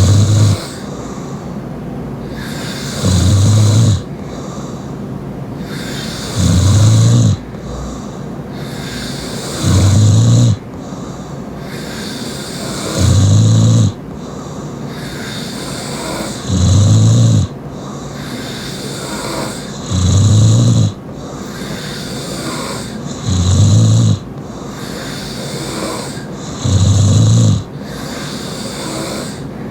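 A sleeping person snoring loudly through an open mouth: a deep rasping snore about every three and a half seconds, nine in all, with breathy airflow between them.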